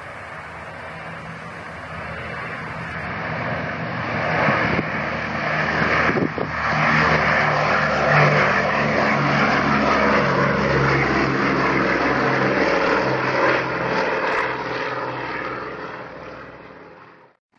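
Boeing B-17 Flying Fortress's four Wright R-1820 Cyclone radial engines at takeoff power, a deep propeller drone that swells as the bomber lifts off and passes. The pitch drops as it goes by, and the sound fades as it climbs away, then cuts off suddenly near the end.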